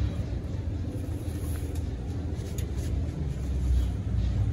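Low, steady rumble of street traffic, growing louder near the end.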